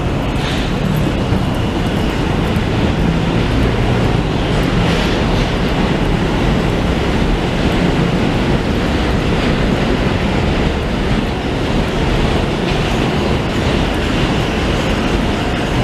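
Train running with a steady, loud rumble and clatter.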